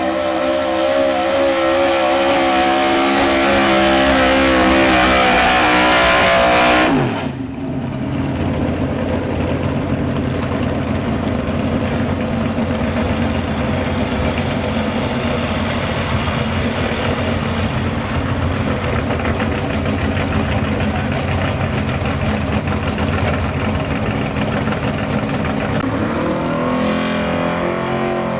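Gas pickup truck's engine at full throttle pulling a weight-transfer sled, cutting off abruptly about seven seconds in when the driver lifts at the end of the pull. A lower, steady engine rumble follows, and near the end a second pulling truck's engine revs up as it starts its run.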